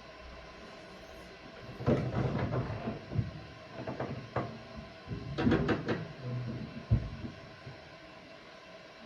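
Irregular knocks and clatter of things being handled and set down on a work table, in two bursts, with a single thump near the end.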